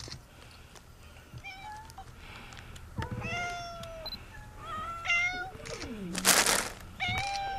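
A crowd of cats meowing: about five drawn-out meows of different pitches, some overlapping, with a brief loud rustle about six seconds in.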